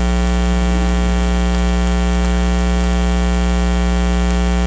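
Steady electrical mains hum with a buzzy stack of overtones, carried on the sermon's audio feed and unchanging throughout.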